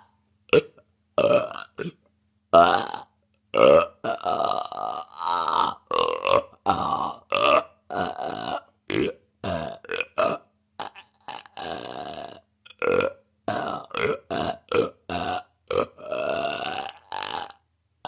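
A woman letting off rapid-fire voluntary burps: more than twenty short belches one after another, each under a second, with brief silences between them.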